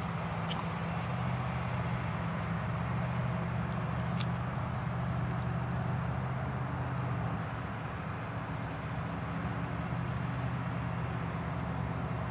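Krone Big X 770 forage harvester running steadily under load as it chops maize: a distant, even engine drone with a hiss from the cutting and blowing. A few short, faint high chirps come and go.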